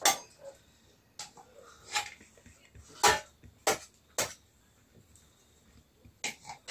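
Metal spoon knocking against a metal cooking pot and a steel plate while food is scooped and served: a string of separate sharp clinks and knocks, irregularly spaced.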